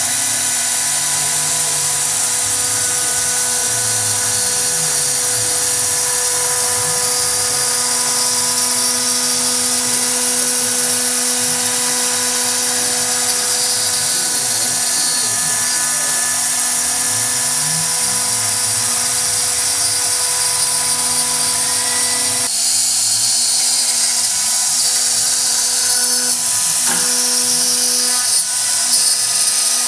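2.2 kW CNC router spindle running steadily with a high-pitched whine, cutting. The sound shifts about two-thirds of the way through, becoming thinner in the low end.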